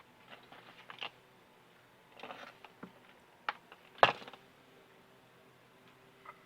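Scattered small clicks and knocks as a drainage pump and its parts are handled during disassembly, with a brief scrape and one sharper knock about four seconds in.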